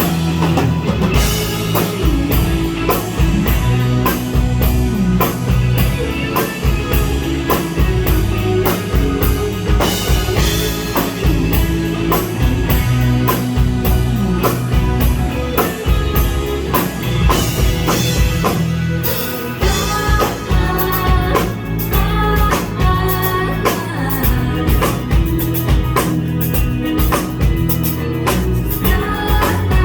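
Live indie rock band playing: drum kit, electric guitar and bass guitar, with the drumming growing busier about two-thirds of the way through.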